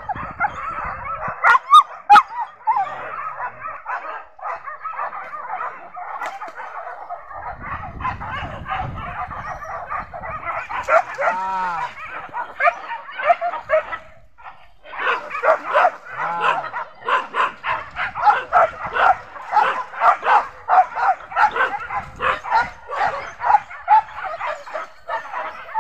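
Boar-hunting dogs barking and yelping, many barks overlapping, with one drawn-out yelp near the middle and quicker runs of barks in the second half.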